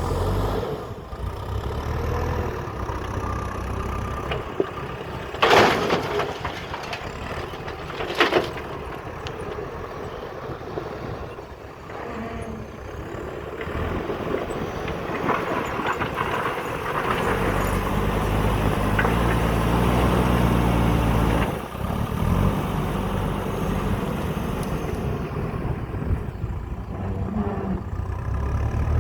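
JCB backhoe loader's diesel engine running, rising to a louder working pitch about two-thirds of the way through, then dropping suddenly. Two loud, short bursts of noise stand out, around five and eight seconds in.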